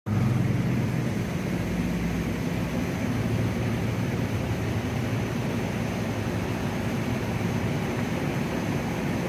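A steady low mechanical drone: an even roar with a hum of several low tones underneath, holding unchanged throughout.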